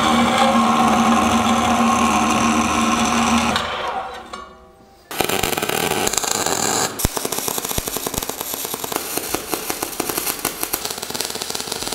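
A metal cold-cut circular saw's motor runs with a steady hum and winds down after about three and a half seconds. About five seconds in, a welder's arc takes over with a dense, continuous crackle as steel frame parts are welded.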